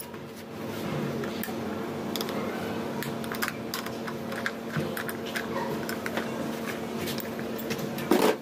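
Irregular light metallic clicks and ticks as a motorcycle side mirror is loosened with a wrench and unscrewed by hand from its mount on the front brake master cylinder, with one louder knock near the end.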